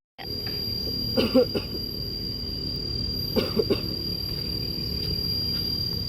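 A person coughing in two short bouts of a few coughs each, about a second in and again about three and a half seconds in, over a steady low background rumble.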